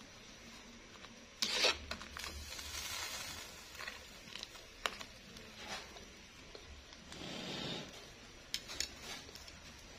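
A metal spatula stirring thick stew in an aluminium pot, scraping along the pot and knocking against its rim, the loudest knock about a second and a half in.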